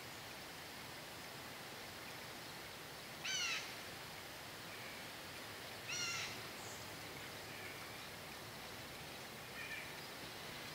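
A bird calls twice, two short calls about two and a half seconds apart, over a steady background hiss, with a few fainter calls later on.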